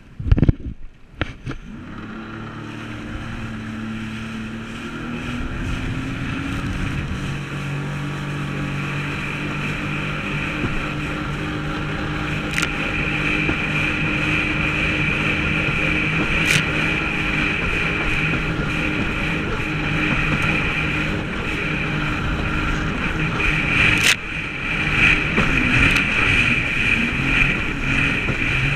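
Sea-Doo personal watercraft running at speed over the sea, its engine note steady after building up over the first several seconds, with water and wind rushing on the microphone. A few sharp knocks at the start and a handful of short sharp cracks later cut through the engine.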